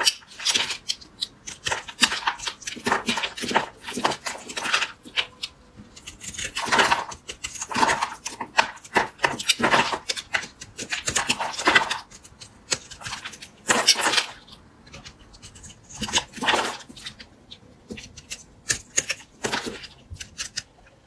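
Blade cutting and scraping through a bar of soap: crisp crackling, crunching strokes in uneven bursts, with quieter stretches between them.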